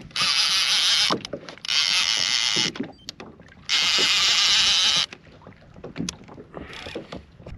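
Fishing reel whirring as line is cranked in fast: three loud spells of about a second each, with quieter knocks and water lapping between them.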